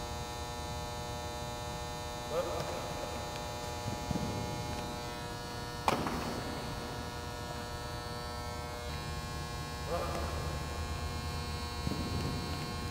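Steady electrical hum, with a single sharp knock about six seconds in and a few faint brief sounds around it.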